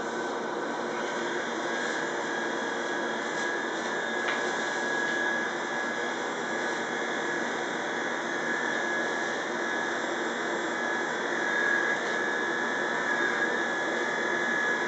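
Corded electric hair clipper running with a steady motor hum, a little louder in the last few seconds as it is worked up the nape.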